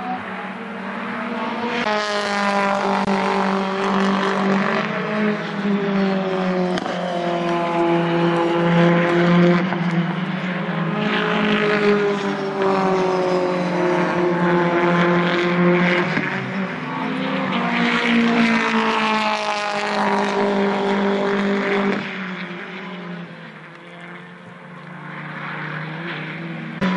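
British Touring Car Championship race cars running on track, engines revving up and falling back again and again as they accelerate, shift gear and pass, one after another. The engine noise drops away about three-quarters through and starts building again near the end.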